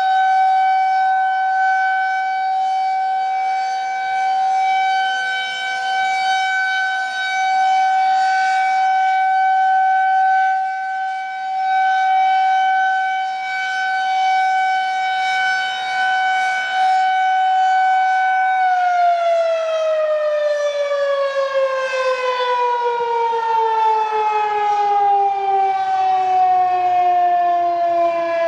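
Federal Signal 2001-130 rotating outdoor warning siren sounding a steady single-tone alert, swelling and fading in loudness every few seconds as the head turns. About two-thirds of the way through, the power is cut and the siren winds down, its pitch gliding steadily lower.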